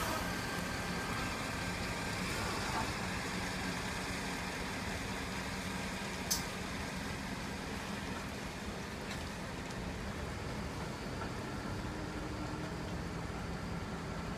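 Heavy-haulage truck's diesel engine running steadily at low revs as it slowly tows a multi-axle low-loader. One sharp click is heard about six seconds in.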